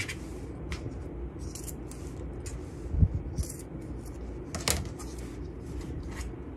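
Fabric scissors snipping through layers of cotton several times, clipping the corners of a sewn cushion cover before it is turned right side out. A soft knock about three seconds in.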